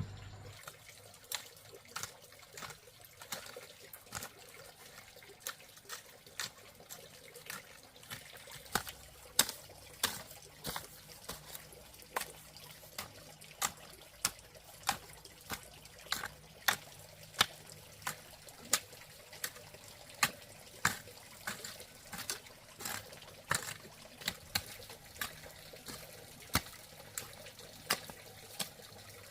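Water trickling, with sharp drips or splashes falling at about one or two a second.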